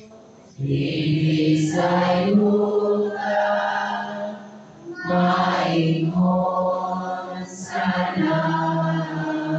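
A priest chanting a Mass prayer into a microphone: a single male voice on long held notes, in two phrases with a short breath about halfway.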